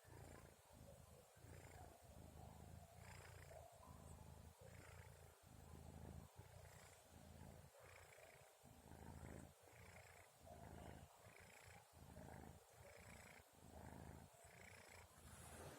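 A sleeping kitten snoring softly: a low rumble that breaks and starts again with each breath, roughly once a second.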